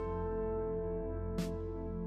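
Background music: sustained held notes with one sharp percussive hit about a second and a half in.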